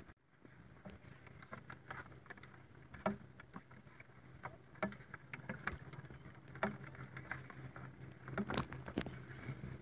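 Faint, irregular patter of small water drips and light lapping at the side of a kayak, with scattered ticks that come more thickly near the end.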